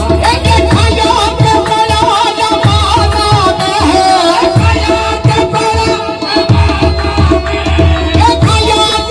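Live qawwali music: a harmonium melody winding over a held drone note, with tabla keeping a steady beat.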